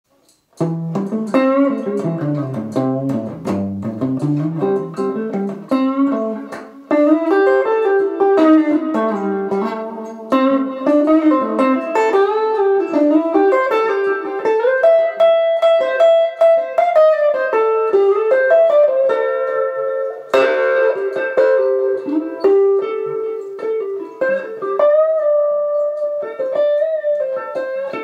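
Solo Telecaster-style electric guitar improvising in A minor pentatonic: picked single-note lines that start low for the first few seconds, then move higher with some held notes.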